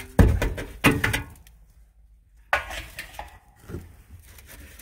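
Metal hubcaps and a wire-spoke wheel cover clattering and scraping as they are shifted about in a pile of junk. There are a few sharp knocks in the first second, a short silent gap midway, then more clatter.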